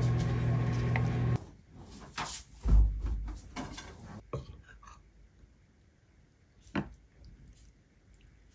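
A steady kitchen hum that cuts off about a second and a half in, followed by knocking and clatter of dishes and tableware, with one heavy thump just under three seconds in. Then it is mostly quiet, with a few light clicks of utensils and one sharper click near the end.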